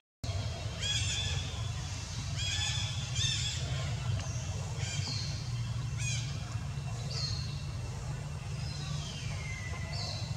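Repeated high-pitched animal calls: short wavering calls, a few seconds apart, then longer calls that fall in pitch, over a steady low rumble.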